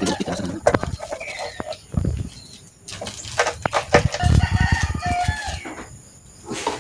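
Loose chainsaw chain clinking and rattling as it is picked up and handled, with thumps on the floor. A rooster crows, one drawn-out crow starting about four seconds in.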